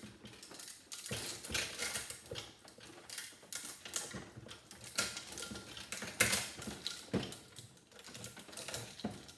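Metal clicking, rattling and scraping as a vacuum cleaner motor's copper windings and parts are worked loose by hand with pliers at a bench vise. The sounds are irregular, with a sharper knock about six seconds in.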